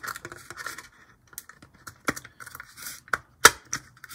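Hard plastic clicks and rubbing from an HO-scale Life-Like Proto model locomotive's shell being pressed and worked onto its chassis by hand. The clicks are scattered, and the sharpest comes about three and a half seconds in.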